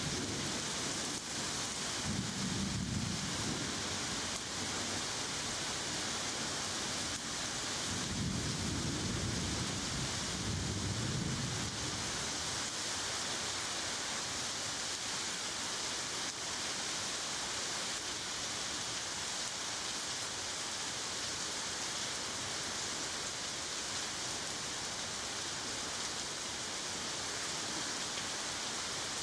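Steady rain with low rolls of thunder, the rumbles strongest near the start and again about eight to twelve seconds in.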